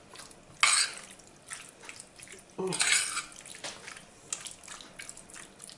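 Metal spoon stirring raw marinated pork strips in a ceramic bowl: a run of irregular clinks and scrapes against the bowl, the loudest about half a second in and around three seconds in.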